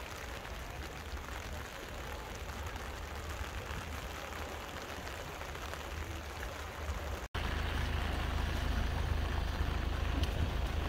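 Steady outdoor noise of wind and rain by the sea, with a low rumble of wind on the microphone. About seven seconds in it breaks off and comes back louder, the wind rumble now heavier.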